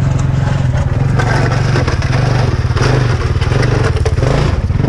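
KTM snow bike's engine, a dirt-bike engine on a Camso track kit, running steadily at idle close by, with a brief dip in level near the end.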